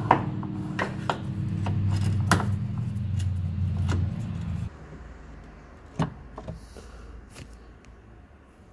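Irregular metallic clicks and knocks of a hand tool worked at the tailgate strut's mounting bolt, over a steady low hum that stops about four and a half seconds in; a few fainter clicks follow.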